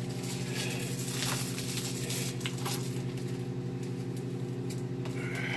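Plastic film being peeled off a frozen meal's tray, crinkling and crackling in irregular clicks and scrapes, over a steady low hum.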